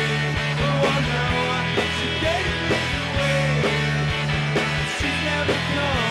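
Live rock band playing: electric guitars, bass and drums with a steady beat, and a man singing.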